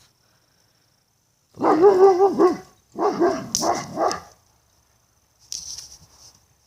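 A dog barking in two loud bursts about a second long each, the second broken into several barks.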